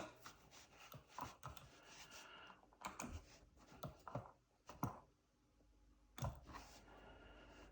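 Faint, irregular clicking of arcade joystick and push-button controls being worked while editing, about a dozen separate clicks with a short pause near the middle.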